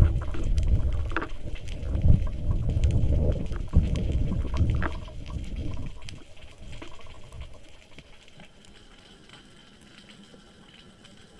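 Underwater sound heard through a camera housing in the sea: a low rumble that fades away between about five and eight seconds in, with faint scattered clicks throughout.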